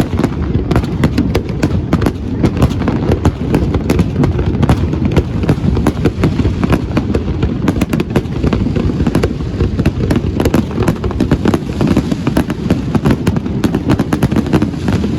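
Fireworks going off in a loud, continuous barrage of bangs and crackles, many per second.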